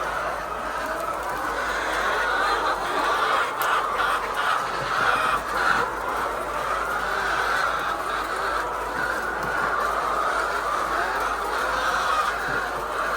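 A large flock of laying hens clucking without pause, many birds at once, with a few short knocks a few seconds in.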